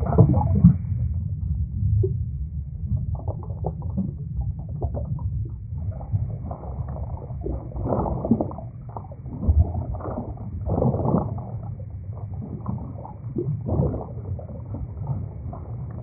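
Muffled, low rumbling with uneven swells and no clear tune or words: the end card's added sound track.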